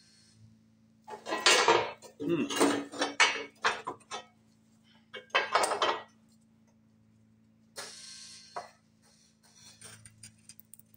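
Homemade hydraulic press brake bending a 6 mm steel flat bar: loud metallic creaks and clanks in a run of strokes during the first six seconds, over a steady low hum. A shorter hissing burst comes about eight seconds in.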